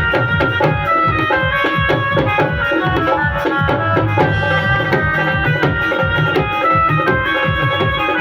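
Dhol drumming: a fast, steady run of deep bass strokes and sharper high strokes, over a held melodic line from a reed- or keyboard-like instrument.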